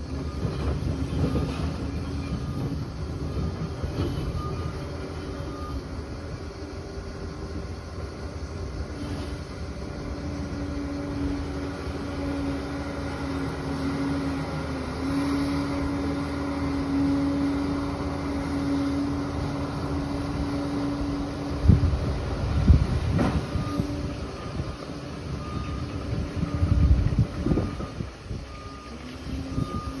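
Liebherr 746 crawler dozer's diesel engine running steadily as it works, its reversing alarm beeping at the start and again near the end. Several loud knocks come about two-thirds of the way through and once more near the end.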